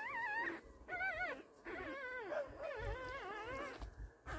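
Young beagle puppies whimpering: a string of high, wavering cries, several puppies overlapping, with a sharp click just before the end.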